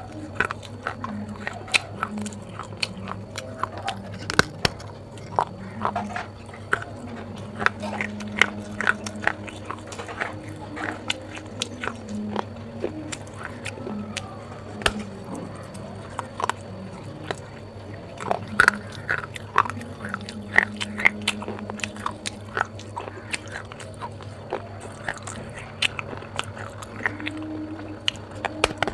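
A clay pot being bitten and chewed close to the microphone: many sharp, irregular crunches and cracks as pieces of fired clay break off between the teeth.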